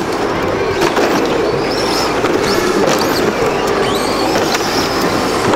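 Radio-controlled model cars running on a carpeted track, their motors whining up and down with the throttle. Plastic knocks and clatter come from the model caravans they tow as the caravans bounce and crash.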